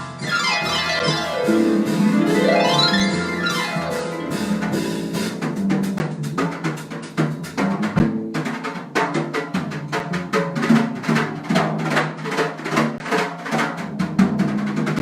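Live Brazilian jazz band playing an instrumental passage. A harp sweeps a glissando down and back up, then drums and percussion join in a busy rhythm under the band.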